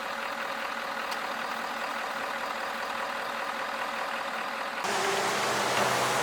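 Vehicle running, a steady engine and road noise with a faint hum. About five seconds in it changes abruptly to a louder, hissier rush.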